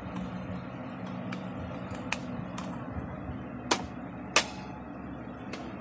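Sharp plastic clicks, about five in a few seconds with the loudest near the middle, as the controls of a bagless cyclonic canister vacuum cleaner are worked and its motor does not start: the vacuum is dead, with no power. A steady low hum runs underneath.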